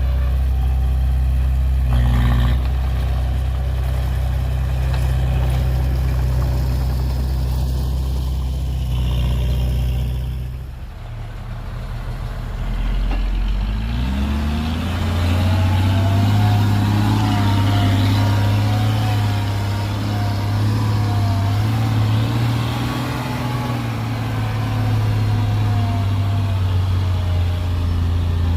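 Heavy machine's diesel engine running steadily, easing off about ten seconds in, then revving up a few seconds later and holding at higher speed with a wavering whine over it.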